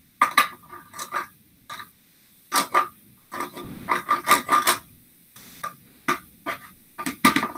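Toy sword blade scraped back and forth across a metal padlock in about a dozen irregular rasping sawing strokes, some short and some longer, with brief pauses between them. The blade does not cut the lock: it is too dull.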